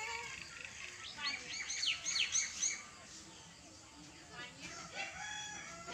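Small birds chirping: a run of quick, high, sweeping notes, loudest about two seconds in.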